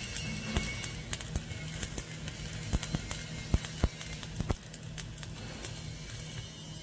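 Stick-welding arc from an E7016 3.2 mm electrode running a vertical fillet weld: a steady low hum under an even hiss, broken by irregular sharp crackles and pops.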